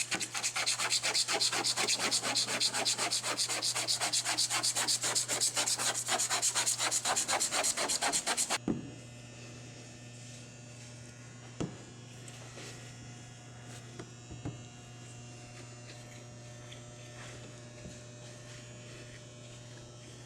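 Quick, rhythmic back-and-forth rubbing on a car's painted hood, several strokes a second, working overspray and tree sap off the paint. It stops abruptly about eight and a half seconds in, leaving a steady low hum with a few light knocks.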